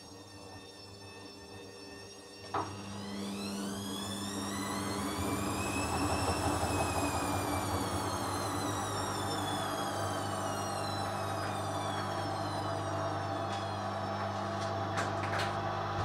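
Hoover Dynamic washing machine's drum motor turning the drum during a rinse. A click about two and a half seconds in, then the motor's whine rises, peaks and slowly falls again over a steady hum, with a few sharp clicks near the end.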